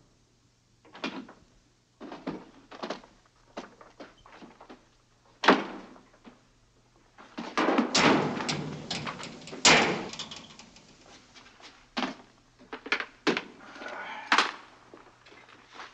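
Door sounds, then a run of knocks, thumps and rustling as a man moves about a bunk room handling his gear, with two sharp knocks, one about five and a half seconds in and one near ten seconds. A low steady hum runs underneath.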